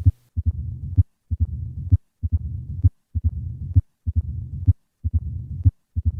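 Recorded heart sounds of mitral stenosis, repeating about once a second. Each beat has a low-pitched rumble that builds into a sharp, brighter heart sound, the presystolic accentuation caused by the atrial kick.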